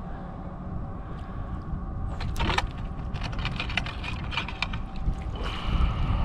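Long-handled dip net splashing in shallow water as it is pushed along and scooped under a blue crab: a run of sharp splashes from about two seconds in, then a rush of water as the net lifts out near the end, over a steady low rumble.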